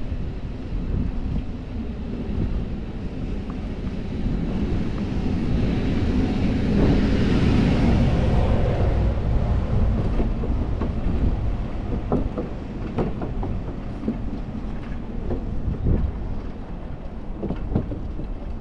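Wind and road rumble on a bike-mounted action camera's microphone while riding a fixed-gear bike. A louder rushing noise swells and fades about halfway through, and scattered knocks follow near the end.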